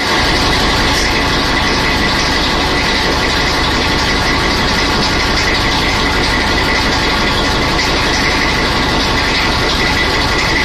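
Diesel engine of an FS D.345 locomotive running steadily, heard up close inside the engine compartment. It is loud and even.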